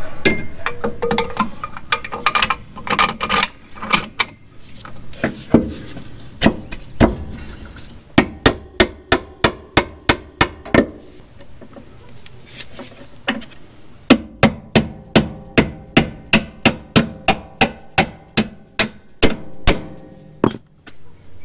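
Hammer striking metal while a new upper control arm is fitted to the rear suspension. It starts with scattered knocks, then goes into steady blows at about three a second, pauses, and finishes with another steady run.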